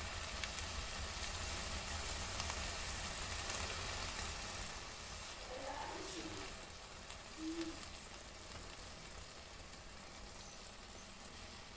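A pot of rice with pigeon peas sizzling softly over low heat, the cooking water nearly absorbed as the rice dries out. The sizzle eases a little in the second half.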